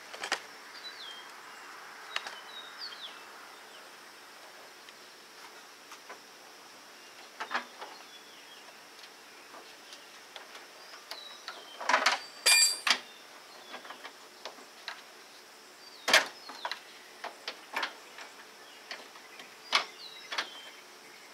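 Scattered metallic clicks, clinks and knocks of a bolt and hand tools being worked into a radiator mounting, the loudest a pair of clinks about twelve seconds in, one ringing briefly, and another knock a few seconds later. Birds chirp faintly throughout.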